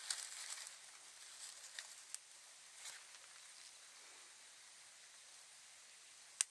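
Kindling and wood shavings catching fire in a stainless steel fire stand. A soft hiss of flame fades out in the first second, then come scattered crackles and pops, with one sharp pop near the end.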